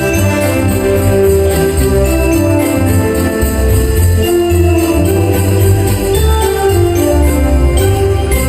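Music with jingle bells shaken in a steady beat under held instrumental notes.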